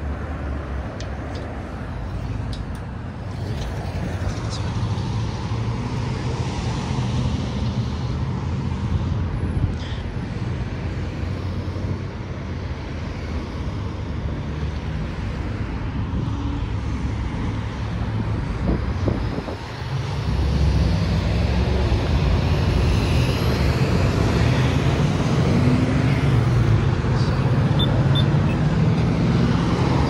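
Steady road traffic on a highway: cars and heavier vehicles running past with a low rumble, growing louder about two-thirds of the way through as more or heavier vehicles pass.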